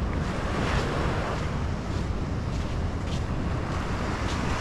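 Wind buffeting the microphone over the steady wash of big surf breaking on a sandy beach.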